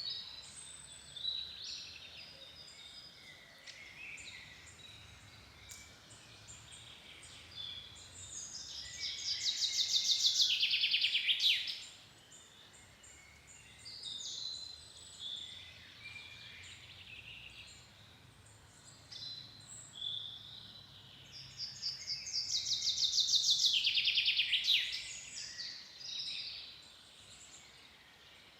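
Forest songbirds singing, with short chirps and phrases throughout. About eight seconds in and again about twenty-two seconds in, a loud, rapid trilling song swells for three to four seconds, dropping in pitch as it ends.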